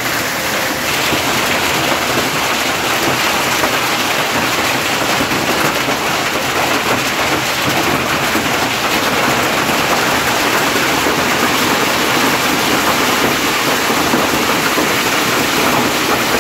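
Hailstorm: hail and heavy rain falling hard, a loud, steady, dense noise.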